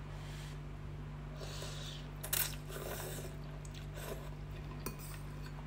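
A person eating ramen noodles with a fork from a bowl: a few sharp clinks of the fork against the bowl, the loudest about two seconds in, and soft slurping and chewing, over a steady low hum.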